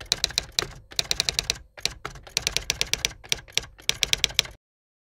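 Typewriter keys striking in quick runs of sharp clicks, with short pauses between runs, stopping about four and a half seconds in.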